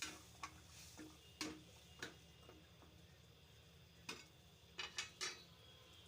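Light clinks and taps of a cooking utensil against a pot, about eight scattered strikes with a quick run of three near the end.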